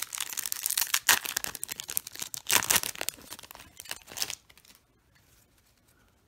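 Foil wrapper of a Magic: The Gathering booster pack crinkling and tearing as it is torn open and handled. A dense crackle with sharp peaks lasts about four seconds, then stops.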